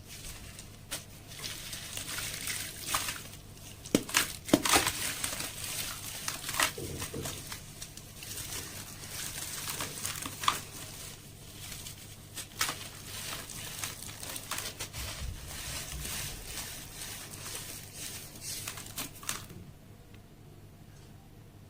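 Sand-cement slabs crumbling into water: dense crunching and crackling with sharp snaps, the loudest about four seconds in, easing off near the end.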